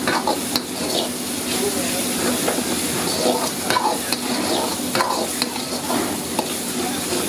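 Chopped onions and tomatoes sizzling in oil in a metal wok, with a metal ladle scraping and clattering against the pan again and again as the mixture is stir-fried.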